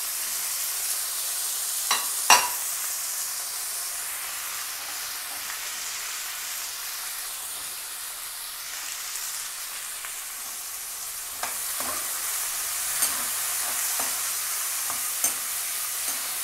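Chopped onions with curry leaves, tamarind and cumin sizzling in hot oil in a kadai, a steady hiss. Two sharp knocks about two seconds in, and from about halfway a metal spoon scraping and knocking against the pan as they are stirred.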